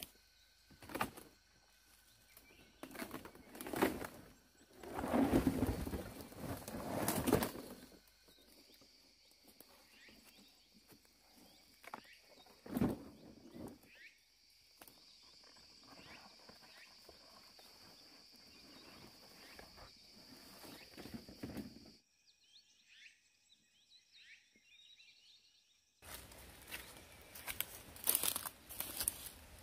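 Footsteps crunching and rustling through leafy forest undergrowth, heavy for the first several seconds and again near the end. In between, a steady high-pitched drone with scattered bird chirps.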